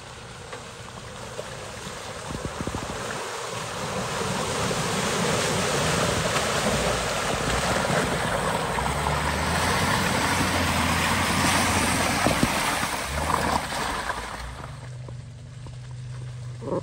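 An off-road 4x4's engine running under a loud rushing noise that builds over several seconds, then drops away a couple of seconds before the end.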